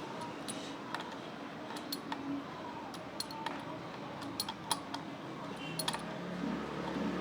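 Scattered sharp metallic clicks and taps of a Knipex pliers wrench working on a tight bolt on a motorcycle handguard. A low hum comes in near the end.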